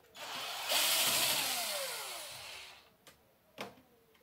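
A motor whirs loudly, then winds down over about two seconds, its pitch falling steadily.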